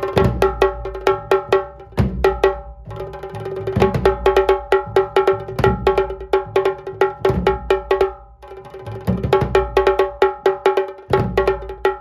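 Tasha kettle drum played fast with two thin sticks: a rapid, unbroken run of sharp, ringing strokes, with deep dhol beats landing every couple of seconds underneath. The playing drops off briefly about two-thirds of the way through, then picks up again.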